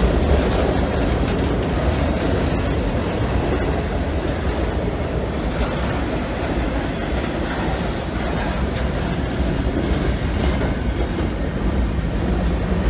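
Freight cars of a long CSX train (boxcars, a tank car, covered hoppers) rolling past close by: a steady rumble of steel wheels on the rails with an ongoing clickety-clack.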